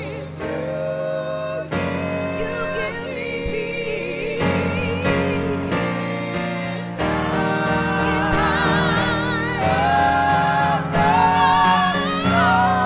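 Gospel vocal group singing in harmony with keyboard accompaniment, the voices held with vibrato and growing louder in the second half.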